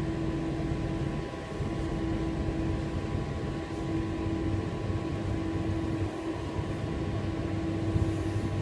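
Inside a moving passenger train: a steady low rumble with a constant hum as it runs slowly along a station platform.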